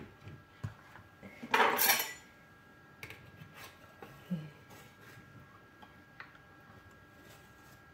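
A metal loaf tin scraping and knocking on a plastic chopping board, loudest in one half-second scrape about one and a half seconds in. After it come light clicks and scrapes as a knife is worked along the inside edge of the tin to loosen the freshly baked cake.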